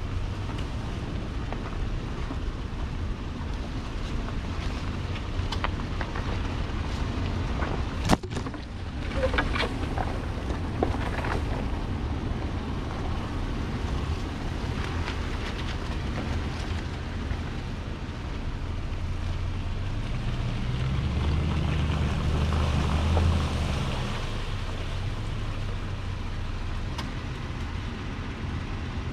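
Off-road vehicle driving slowly along a rutted dirt trail: a steady engine drone with a rush of noise, a sharp knock about eight seconds in followed by brief squeaks, and the engine pulling harder for a few seconds near the end.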